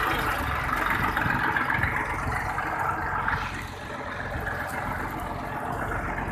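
Massey Ferguson tractor's diesel engine running steadily at idle, with some mechanical clatter; it gets a little quieter about three and a half seconds in.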